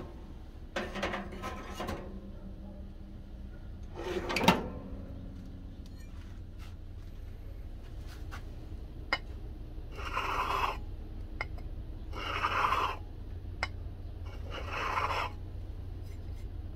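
Metal clatter from an open toaster oven with a knife blade on its wire rack, with a sharp knock about four and a half seconds in. Later come three rasping rubbing strokes a couple of seconds apart, worked against a glass bottle lying on a towel. A steady low hum runs underneath.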